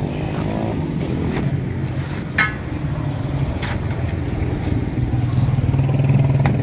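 Steel tire lever knocking and clinking against a steel truck rim while the tire bead is pried off, with one sharp ringing clink about two and a half seconds in. Underneath, a motor drones steadily and grows louder near the end.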